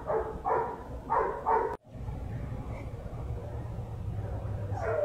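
A dog yipping in a run of short high calls during the first couple of seconds. After a sudden break there is a low steady rumble, with one more call near the end.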